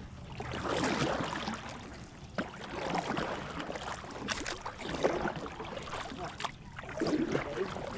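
Canoe paddle strokes in lake water, with water washing along the hull, swelling and fading about every two seconds.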